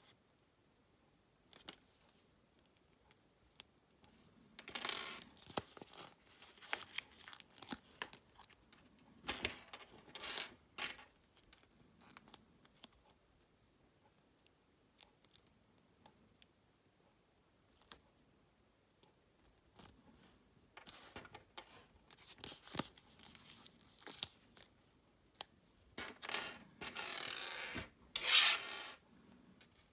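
Foil wrapper of a Kinder Surprise egg crinkling and tearing as it is unwrapped by hand, in four bursts of rustling with scattered sharp clicks and taps in between.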